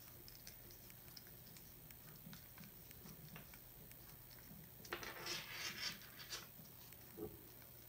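Faint clicks and taps of fingers handling a plastic earphone case and its cord, with a louder spell of scraping and rustling from about five seconds in to six and a half, and one more click shortly after.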